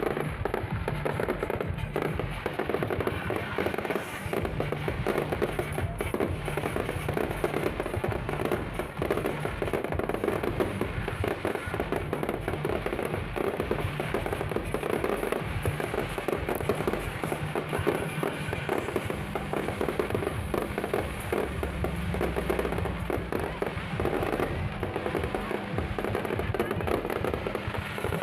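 Fireworks display going off without a break: a dense run of bangs and crackles, with music playing underneath.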